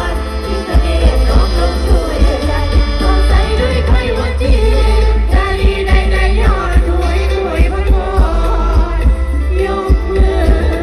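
Loud Thai Isan stage-band music with singing over a heavy bass and a steady beat.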